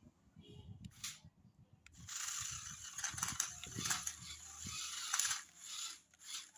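Toy remote-control off-road car's small electric motor and plastic gearbox running with a rapid clicking, from about two seconds in until about five seconds in.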